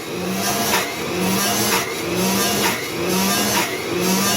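Cinderella clothes washer's 1930s universal AC-DC motor running its pumping action, with a rhythmic cycle about once a second: a whine that rises and then drops sharply on each stroke. This is the washer's normal running sound without a suds lock, with less high-end noise than when the suds overload it.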